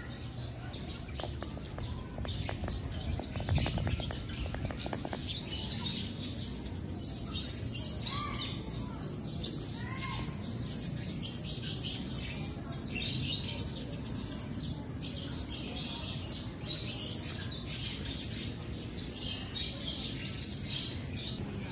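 Birds in an aviary chirping in many short scattered notes, with a few lower arching calls about eight and ten seconds in, over a steady high-pitched insect drone.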